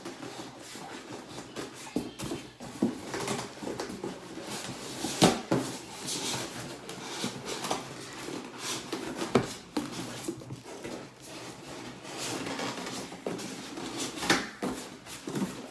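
Cardboard box and packaging being handled as a heavy blender is pulled out: irregular rustling and scraping with scattered knocks, the sharpest about five seconds in and again near nine seconds.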